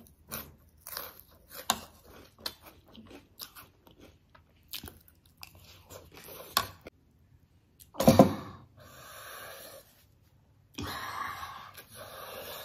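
Close-up crunchy chewing of spicy chatpate and crisp dhungri snacks, many small crackling clicks. About eight seconds in comes a sharp cough-like burst, followed by long hissing breaths through the mouth from the chili heat.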